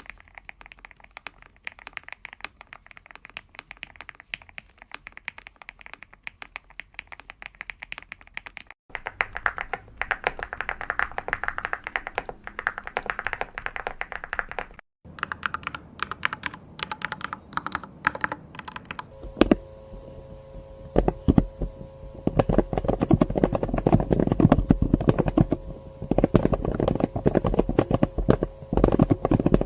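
Fast typing on several different computer keyboards, cut one after another in four sections, each with its own click sound. The last section, from about two-thirds of the way through, is the loudest and deepest-sounding, with a steady hum under the keystrokes.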